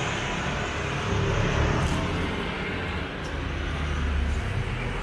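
Street traffic: motor scooters and cars passing close by, a steady hum of tyres and engines with a low engine rumble that swells from about a second and a half in to near the end.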